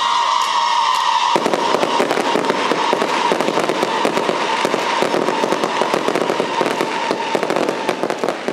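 Fireworks going off: a dense, rapid crackling of many small bangs starts about a second in. A steady high whistling tone runs under it, falling slightly in pitch, and fades near the end.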